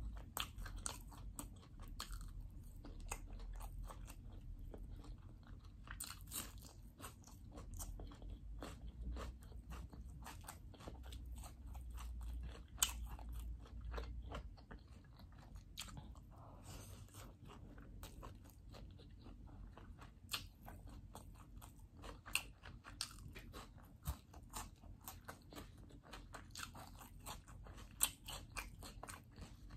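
Close-up eating sounds: a person chewing mouthfuls of chicken fried rice and chicken, a quick run of small crunches and mouth clicks.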